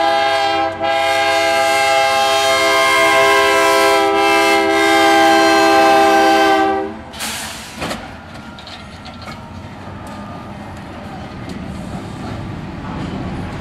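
Diesel locomotive's multi-tone air horn sounding a long blast, typical of the warning for a road crossing. The horn dips briefly about a second in and cuts off about seven seconds in. The lower rumble of the container train rolling past follows, with occasional wheel clicks.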